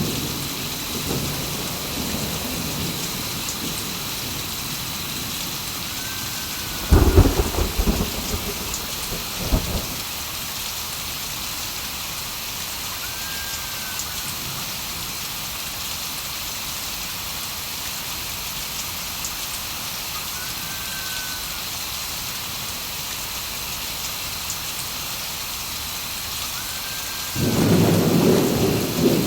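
Thunderstorm with steady rain falling. Thunder cracks sharply about seven seconds in, again more weakly a couple of seconds later, and a loud rolling rumble builds near the end.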